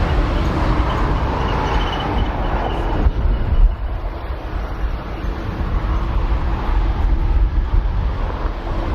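Jet airliner engines rumbling, with a faint steady whine over the rumble and wind buffeting the microphone; the higher part of the noise drops away suddenly about three seconds in.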